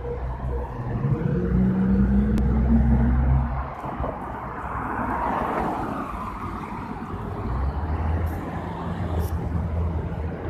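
Street traffic: a car engine revs up with a rising pitch and cuts off about four seconds in. Then a car passes with a swell of tyre and engine noise, and engines run low again toward the end.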